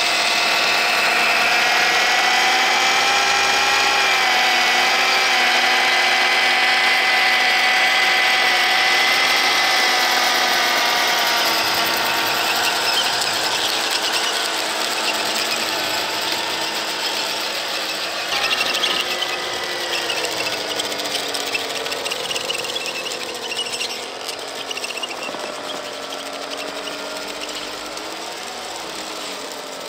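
Electric drive motors and gearing of a 3D-printed radio-controlled tracked snowblower (Spyker Kat) whining as its auger throws snow, the pitch wavering and dipping with load. Loudest in the first twelve seconds, then growing fainter toward the end.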